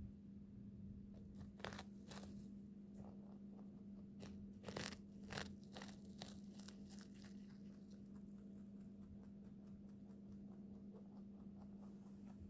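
Rabbit biting and crunching a hay cake: a run of sharp crunches for several seconds, then faster, fainter chewing.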